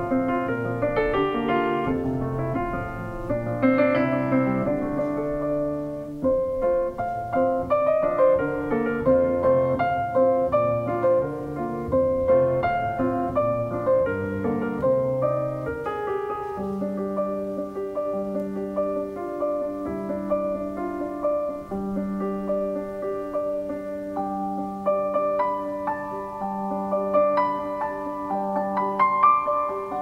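Solo grand piano played live. The first half is a busy passage of chords and runs; from about halfway a low note repeats about once a second beneath a higher melody.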